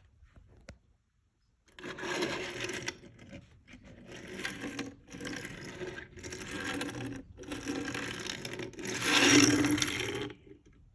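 Pencil rubbing and scratching across paper in several spells of a second or so, with short breaks between; the last spell, near the end, is the loudest.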